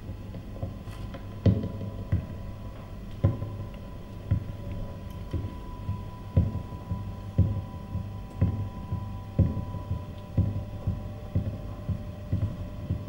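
Sparse music for a dance piece: low, short thuds pulsing about once a second over a steady low hum and a faint held high tone.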